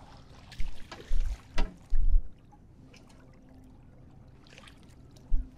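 Dull knocks and thumps, several in the first two seconds and one more near the end, as a large conger eel is handled and lifted at the side of a small boat, over faint water lapping.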